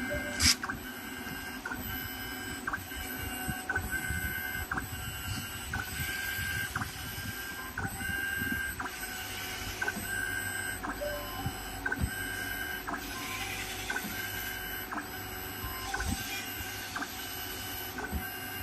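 Yaskawa SGMGV servo motor running on a test bench after an encoder and bearing replacement, giving a steady high whine broken into short pulses that repeat about once or twice a second. A single sharp click about half a second in.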